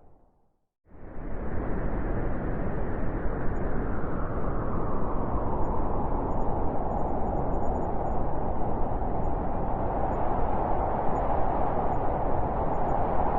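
Howling blizzard wind, a steady rushing noise with a low rumble beneath. It is silent for about the first second, then fades back in and holds steady.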